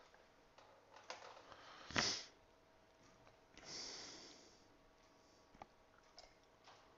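Quiet room with a person's breathing: a short, sharp sniff about two seconds in and a softer, hissing breath around four seconds in, with a few faint clicks in between.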